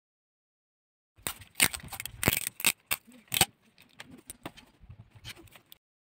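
Clear adhesive tape being pulled off its roll and pressed around a plastic charger adapter and cable. It makes an irregular run of sharp crackles and clicks that starts about a second in and dies away shortly before the end.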